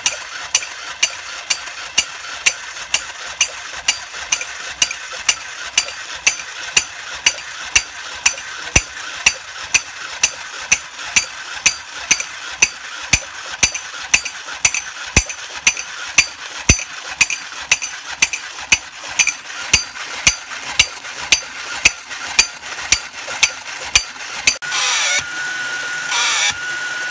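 Vintage Jolly the Chimp cymbal monkey toy clapping its tin cymbals together in a steady rhythm, about two clashes a second, over the whir of its battery-driven motor. About 25 seconds in the clashing stops and a louder hissing noise with a steady high whine takes over.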